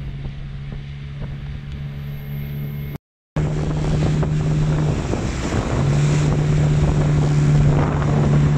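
Motorboat engine running steadily. The sound breaks off briefly about three seconds in, then the engine is louder, with wind buffeting the microphone.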